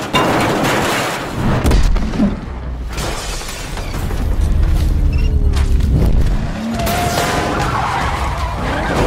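Car crash sounds on a highway: tyres skidding, metal crashing and glass shattering, with loud impacts near the start and about two seconds in, over music.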